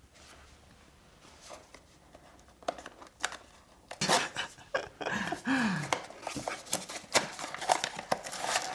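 A Pop Mart blind box being opened by hand: cardboard and plastic packaging clicking and rustling, sparse at first and growing busier about four seconds in.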